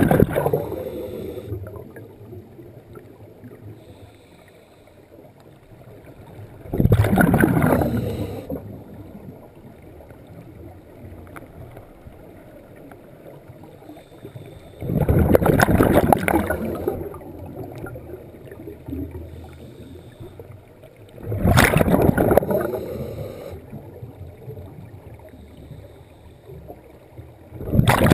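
Scuba diver's exhalations through a regulator, each a loud rush of bubbles lasting a second or two, five times about every six to seven seconds, heard underwater.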